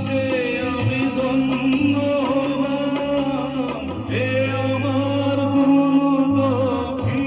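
Music from a song accompaniment: long held melody notes with slides over a bass line that steps from note to note.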